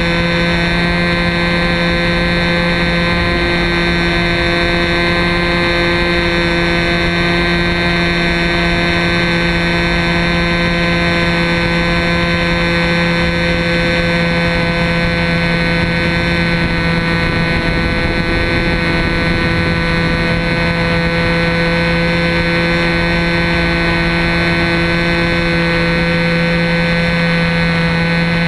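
Two-stroke glow engine of an RC Telemaster model plane running at steady throttle in flight: a loud, even buzz that holds the same pitch throughout, picked up close by a camera mounted under the fuselage, with wind rush underneath.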